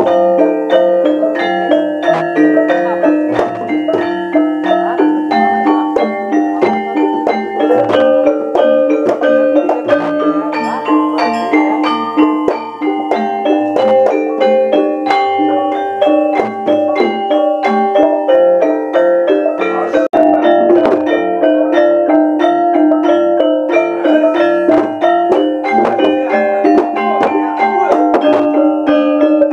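Javanese gamelan ensemble playing continuously: bronze metallophones and gongs struck in a fast, steady pattern, with hand-drum strokes among them, as accompaniment to a wayang kulit shadow-puppet play.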